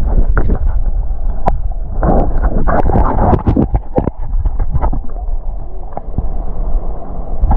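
Wind rumbling on the microphone, with bursts of splashing and handling noise about two to four seconds in.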